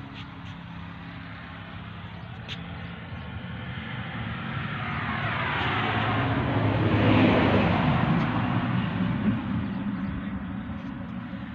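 A motor vehicle passes close by. Its engine and tyre sound swells to a peak about seven seconds in, dropping in pitch as it goes past, then fades away over a steady low engine hum.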